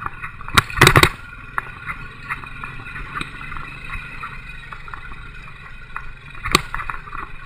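Royal Enfield single-cylinder motorcycle running at low speed on a rough dirt road, a steady low rumble. Sharp knocks and clatter from the ride cut through it, a cluster about a second in and another near the end.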